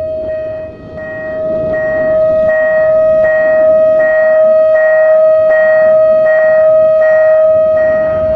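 Railway level-crossing warning signal sounding as the crossing is activated for an approaching train: a steady tone with a ringing pulse about every three-quarters of a second. It grows louder about a second in.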